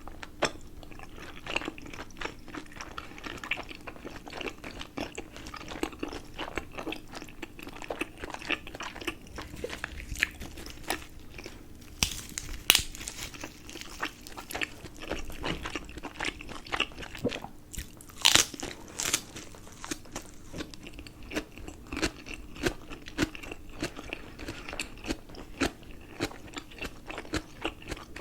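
Close-miked chewing and biting of momos (dumplings): a steady run of short mouth clicks and smacks, with a few sharper, louder bites about 13 and 18 seconds in.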